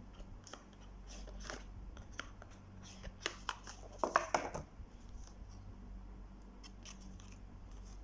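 A Vivo Y20 phone box being handled and opened by hand: scattered light clicks and scrapes of the box parts, with a louder run of scraping and rustling about three to four and a half seconds in.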